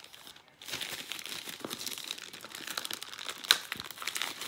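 Plastic poly mailer crinkling and crackling as hands squeeze and work at it to open it, starting about half a second in, with one sharp loud crackle about three and a half seconds in.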